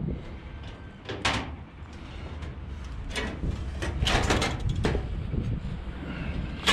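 A few short scrapes and knocks of roofers' hand work on roofing material, over a steady low rumble.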